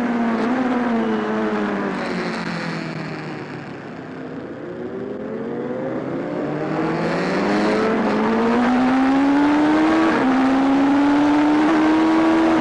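Racing motorcycle engine heard from onboard, with wind rushing past: the revs and level fall under braking into a corner, then rise steadily as the bike accelerates out, dropping sharply on an upshift about ten seconds in and climbing again.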